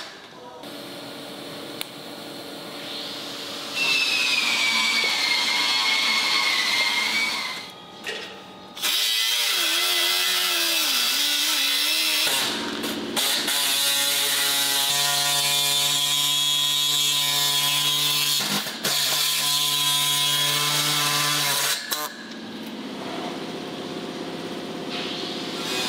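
Background music with sustained, distorted chords that change every few seconds and a gliding high tone, dropping out briefly a few times.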